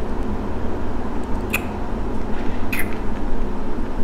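A person taking two short sips from a glass mug, about a second apart, over a steady low hum.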